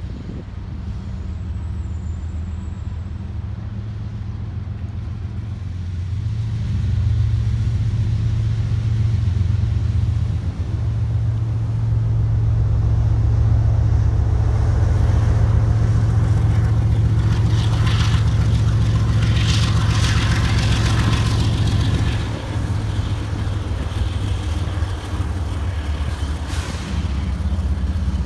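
Freight train rolling past: the steady low rumble of a diesel locomotive engine under the rolling cars, louder for most of the middle. Metallic wheel-on-rail rattling and a few sharp clanks come in for a few seconds past the middle, and the engine note changes again near the end as the locomotive comes close.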